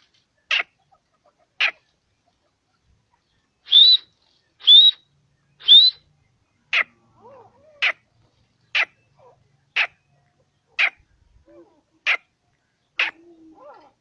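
Grey francolin calling: a run of short, sharp, high notes about one a second, broken near the middle by three longer notes that each rise into a shrill whistle.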